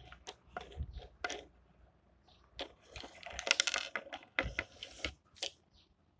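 Small plastic toys being handled, knocked and set down on a wooden tabletop: a string of separate clicks and knocks, with a quick clattering run about three to four seconds in.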